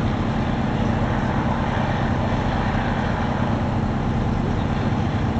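Fire truck engine running steadily, a constant low drone with an even rush of noise over it.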